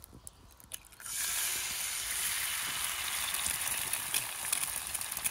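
An egg cracked into a hot cast-iron skillet: a few small clicks as the shell breaks, then about a second in a sudden steady sizzle as the egg hits the hot pan and starts frying.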